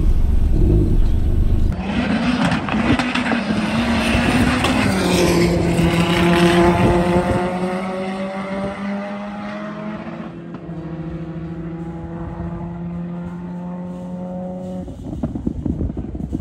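A drag car launching off the line at full throttle and accelerating away down the strip: a low rumble, then a sudden loud engine blast about two seconds in. The engine note drops in pitch about five seconds in, then fades steadily as the car goes away, dying out shortly before the end.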